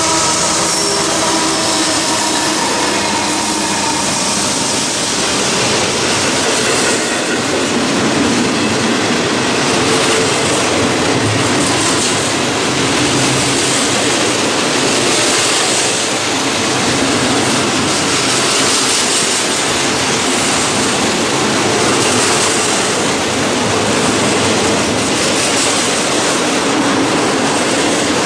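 BNSF diesel freight locomotives passing close, their engine tones audible for the first few seconds, then giving way to the steady, loud noise of double-stack container well cars rolling by on the rails.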